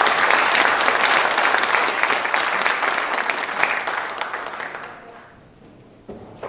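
Audience applauding, strong at first and dying away about four to five seconds in.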